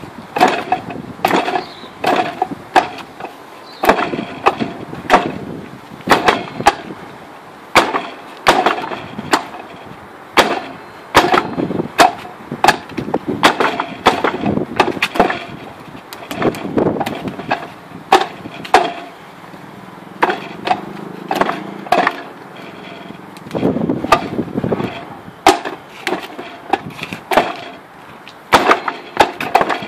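Wooden dummy (mook jong) being struck in Wing Chun practice: sharp wooden clacks of arms hitting its wooden arms and leg, in quick irregular flurries of knocks with short pauses between.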